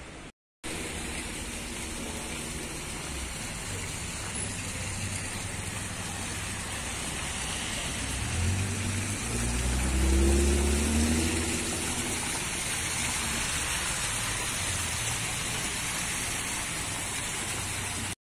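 Steady rushing hiss of outdoor ambience, running fountain water and street traffic. A motor vehicle passes about halfway through with a swell of low rumble and a rising engine note.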